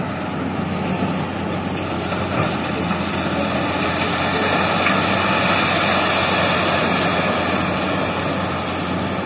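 Diesel engines of Hitachi excavators running, the nearest an EX200, as the machines work: a steady low engine hum under a broad noise that grows louder a few seconds in and eases near the end.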